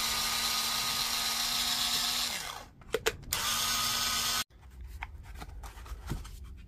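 Cordless drill-driver running steadily while backing out the screws of a battery pack's case, winding down about two and a half seconds in, then after a couple of clicks running again for about a second and stopping abruptly. Light handling clicks follow.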